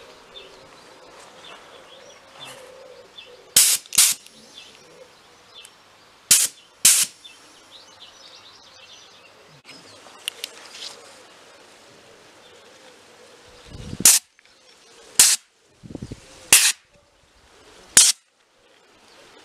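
Short blasts of compressed air from a handheld inflator gun, fired to blow aphids off rose buds. There are about eight sharp hissing bursts, the first four in two pairs about half a second apart. A couple of the later blasts hit the microphone as a low buffeting. Faint bird chirps are heard between the blasts.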